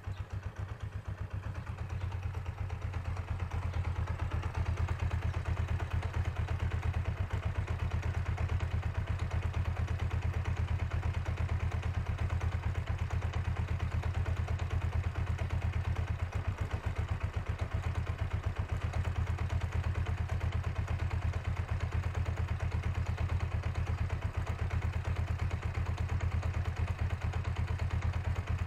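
Kawasaki GPZ500's parallel-twin engine idling steadily, with a knock that the owner places in the gearbox and cannot trace the cause of. The level rises a little over the first few seconds, then holds steady.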